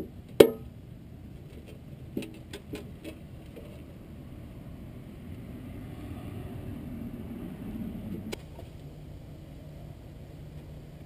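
Handling noises from a removed engine oil pan: a sharp, loud knock about half a second in, a few lighter clicks at two to three seconds, then a few seconds of rustling ending in a click, over a steady low hum.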